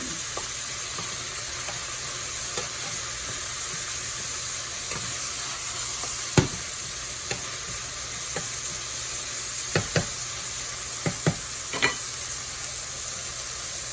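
Chicken pieces sizzling steadily in hot oil with ginger, garlic and onion as they are stir-fried, with a few sharp knocks from the stirring utensil against the pan, the loudest about six seconds in and several more near the end.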